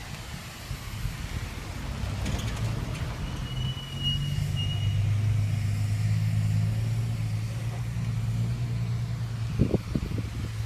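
A car engine running steadily with a low hum that grows stronger about four seconds in, with a short high-pitched beep just before and a few light knocks near the end.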